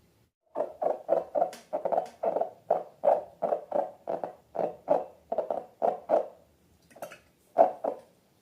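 Slime being squeezed and worked by hand, making a run of short wet squelches at about three a second, then a few more after a brief pause near the end.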